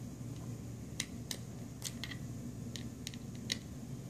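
A small Phillips screwdriver clicking against the screws and plastic rear frame of an LG G3 as the screws are backed out: about eight sharp, irregular ticks over a low steady hum.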